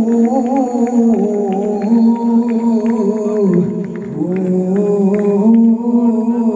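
A man's solo voice singing long, wavering held notes of a Punjabi folk song into a microphone, with faint regular clicks keeping time behind it.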